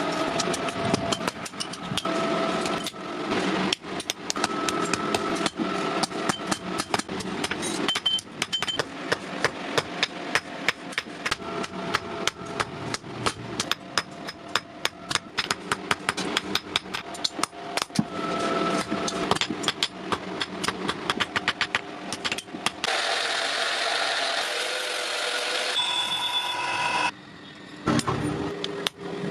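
Hammer striking metal over and over, several blows a second, as steel is forged, over a steady machine hum. From about 23 s in, a hissing noise runs for some three seconds.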